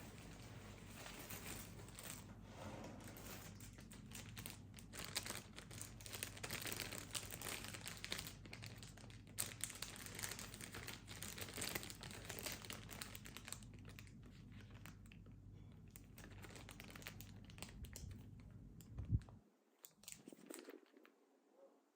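Crinkling and rustling of handled packaging, dense and irregular at first and thinning out later. A single sharp knock comes near the end.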